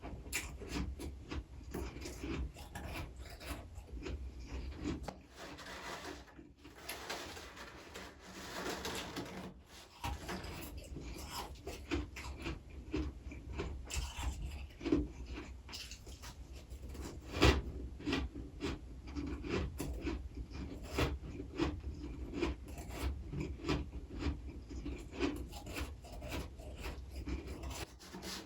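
Close-miked chewing of freezer frost: dense, irregular crunching and crackling bites, with a steadier rasping stretch about six to nine seconds in.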